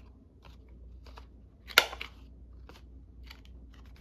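A hand paper-cutting tool snapping shut on card stock: one loud sharp snap a little under two seconds in, with several fainter clicks and rustles of paper around it.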